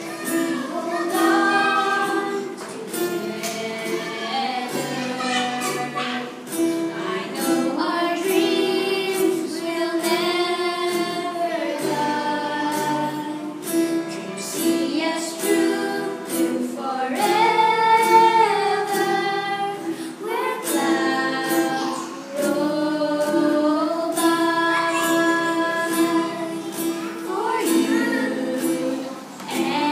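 A young girl singing a song, accompanied by a strummed acoustic guitar.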